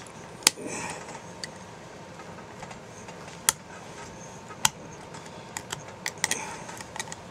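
X-Acto knife carving a leftover stub of plastic off a black plastic jig: sharp, irregular clicks as the blade catches and chips the plastic, over faint scraping, with the clicks bunching up a little past the middle.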